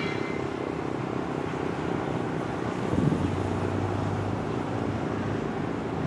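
Sentry 15V2T outdoor warning siren winding down at the end of its Alert test, its low tones fading over the first couple of seconds under a steady background rumble.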